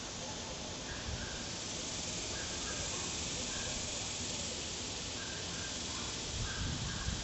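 Steady outdoor hiss with faint short high chirps repeating now and then, and a few low thumps about a second in and again near the end.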